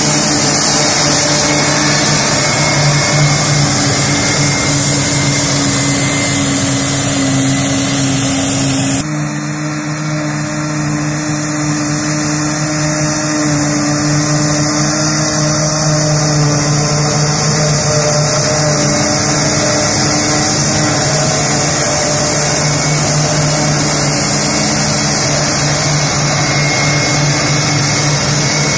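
New Holland FR9060 self-propelled forage harvester at work, its engine and chopping gear running steadily as it picks up and chops grass from the swath, a constant drone with a high hiss and whine over it. The sound changes abruptly about nine seconds in, then runs on steadily.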